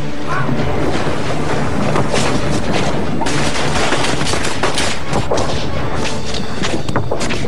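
Film action sound effects: rapid gunfire and heavy booms and crashes, mixed over background music.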